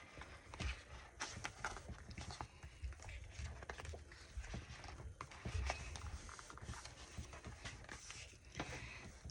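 Sticker sheets and packaging being handled: irregular soft crinkles, light taps and small knocks.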